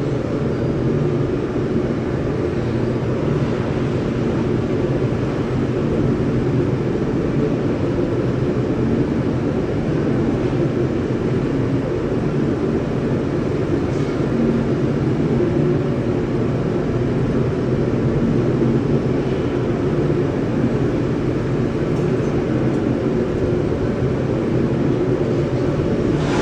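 Steady, loud industrial roar and hum from a ladle refining furnace in a steel plant, unbroken and without speech.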